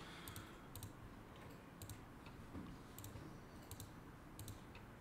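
Faint clicks of a computer mouse, about six spread over a few seconds, each a quick double tick of the button pressing and releasing, over quiet room tone.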